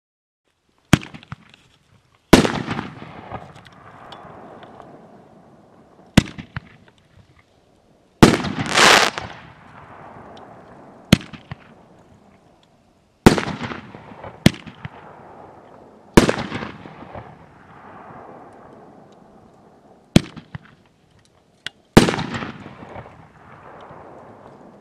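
A 500-gram, 12-shot firework cake firing its brocade crown shells: about ten sharp bangs a second to a few seconds apart, each followed by a fading tail, starting about a second in.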